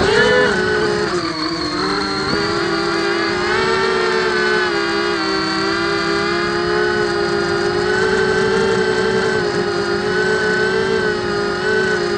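Blade 200QX quadcopter's four brushless motors and propellers whining, heard from its onboard camera: the pitch jumps up at the start as it spins up and lifts off, then holds a steady, slightly wavering hum as it climbs.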